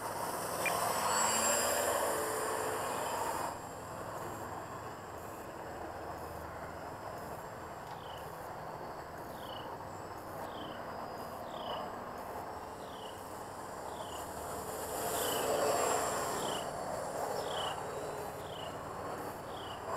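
Radio-controlled model plane's motor and propeller buzzing as it flies past, swelling and fading twice: about a second in and again around fifteen seconds in. Behind it, a steady series of short high chirps, about two a second.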